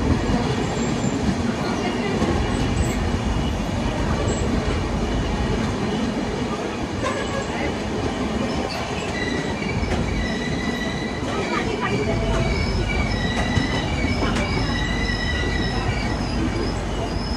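Indian Railways passenger train running past a freight train on the next track, heard from an open coach doorway: a steady rumble of wheels on rail with a few sharp clacks. From about nine seconds in, a high wheel squeal comes and goes repeatedly.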